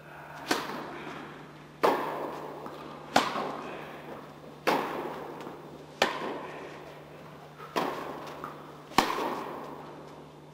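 A tennis ball struck by rackets and bouncing on the court during a rally, starting with a serve: about seven loud, sharp pops roughly 1.4 s apart, with a few fainter ones between them. Each pop echoes in the large indoor tennis hall.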